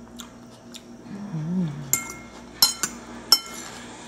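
A metal fork clinking against a bowl: three sharp, ringing clinks in the second half as it digs for food. Before them, about a second in, a person gives a short hum that rises and falls.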